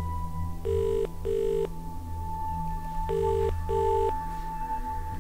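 Telephone ringback tone heard by the caller: a double ring, two short rings close together, then a pause and a second double ring.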